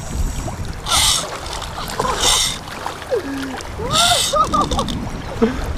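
Shallow seawater splashing and lapping around a wader's legs, in three short bursts.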